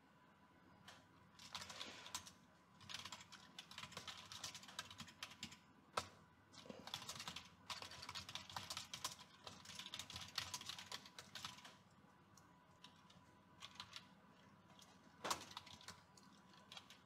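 Typing on a computer keyboard: faint runs of keystrokes with short pauses, a few seconds' lull past the middle, then a few more keystrokes near the end.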